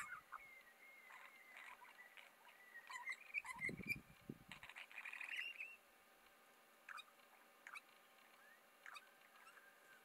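Spiny-cheeked honeyeater singing faint liquid, gurgling whistles, with a rising warbled phrase about halfway through and a few short separate notes near the end. A brief low rumble comes about four seconds in.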